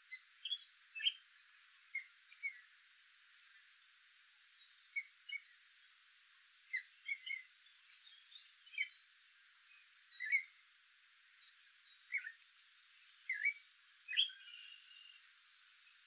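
Gray catbird singing: a rambling series of short, varied squeaky and chirping notes, separated by brief pauses, with a longer held note near the end.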